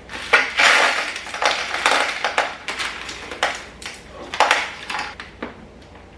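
Dry spaghetti rustling and clattering as it is handled and put into a food storage container. A burst of rustling comes early, followed by several separate knocks and clicks.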